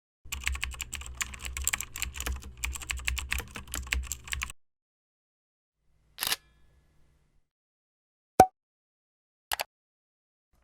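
Computer keyboard typing sound effect: a fast, irregular run of key clicks for about four seconds. It is followed by three short separate sounds a couple of seconds apart, the middle one a sharp click.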